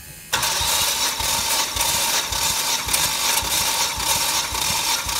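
Starter motor cranking a Volvo B5244S 2.4-litre inline five-cylinder engine with the spark plugs out, for a compression test on cylinder one. It starts suddenly about a third of a second in and goes on steadily with regular low thumps.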